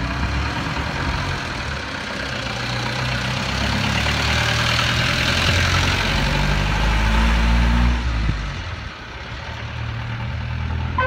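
Bedford CF ice cream van's engine running, growing louder and rising in pitch as the van pulls away, then dropping off sharply about eight seconds in.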